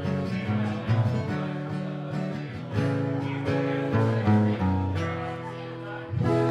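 Solo guitar playing the song's closing instrumental bars, picked and strummed notes over a moving bass line, with a hard strum about six seconds in.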